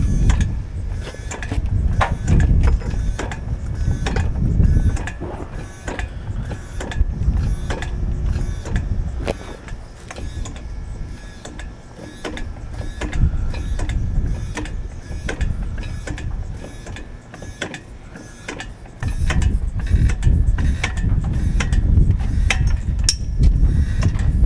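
Tripod aircraft jack being worked by hand under the nose of the aircraft: a steady series of sharp metallic clicks and clanks from the jack's handle and mechanism, over a low uneven rumble that fades in the middle and comes back strongly near the end.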